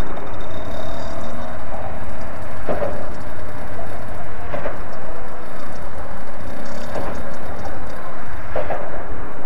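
Child's mini dirt bike engine running at low speed as the bike rolls along, over a steady low rumble of wind and traffic.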